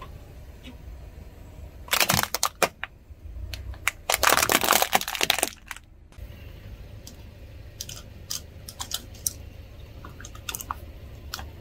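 Objects crushed under a car's tyre, crunching and crackling in two loud bursts about two and four seconds in, followed by scattered small cracks and snaps. A steady low rumble runs underneath.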